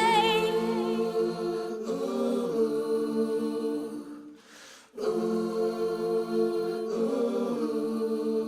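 Song outro: sustained choir-like chords with no drums, opening on a held sung note with vibrato. The chord shifts twice and breaks off briefly to near silence midway.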